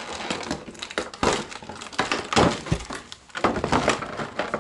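Clear plastic blister-pack tray being handled, crinkling and crackling in several irregular bursts.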